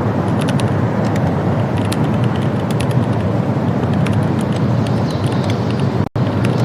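Steady low rumbling noise, like a running vehicle heard close by, with faint scattered ticks; it cuts out for an instant about six seconds in.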